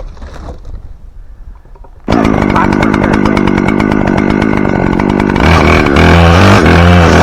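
Chainsaw engine starting to run suddenly about two seconds in and running steadily, then revving higher and louder near the end, its pitch rising and dipping as if under load in a cut.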